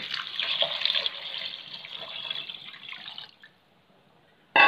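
Water poured from a steel vessel into a pressure cooker of rice and masala, splashing for about three seconds and then stopping. Near the end a sharp metal clank rings on briefly.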